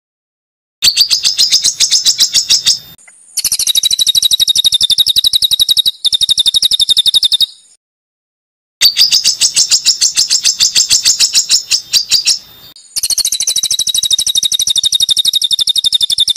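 Songbird singing a harsh, rapid-fire string of high repeated notes in phrases of two to four seconds, each broken off by a sudden cut to silence: an edited, looped bird-song training recording.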